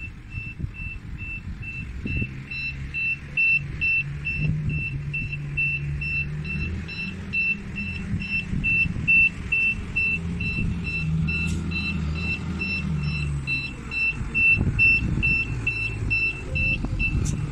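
Cat DP150 diesel forklift's travel alarm beeping steadily, a little over two high beeps a second, over the low rumble of its diesel engine, which swells twice as the machine moves.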